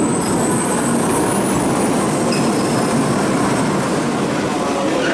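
A Shinkansen train running, a steady rumble of wheels and motors, with a thin high squeal at the start.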